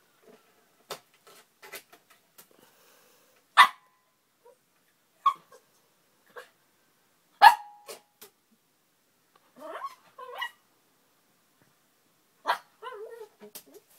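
Small Pomeranian–Japanese spitz dog barking at food it cannot reach on a shelf: three sharp, loud yaps a couple of seconds apart, followed by softer whines with a wavering pitch. Faint clicks come in between.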